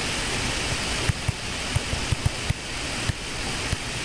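Steady hiss with about eight light, sharp taps scattered through the middle and later part, a stylus tapping on a tablet screen while writing.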